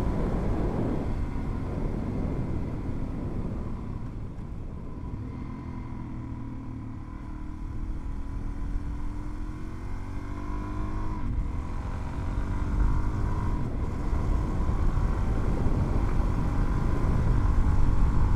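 Suzuki DRZ400's single-cylinder four-stroke engine running on the move, easing off in the first part and then pulling up through the revs from about halfway, with road and wind rumble.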